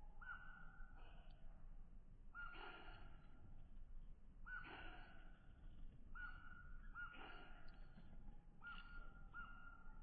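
Faint harsh bird calls, a short noisy call repeated seven times about one to two seconds apart.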